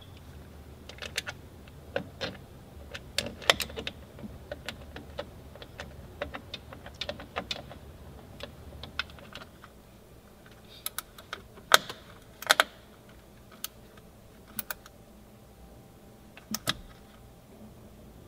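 Irregular clicks and knocks of plastic and metal parts as a replacement part is worked into place by hand inside a minivan's sliding door, with a few sharper knocks. A faint low hum stops about halfway through.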